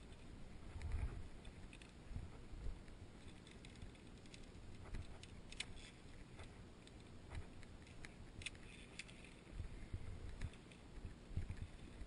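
Scattered light metallic clicks and clinks of a via ferrata lanyard's carabiners riding along the steel safety cable, with a few low thumps from climbing movement.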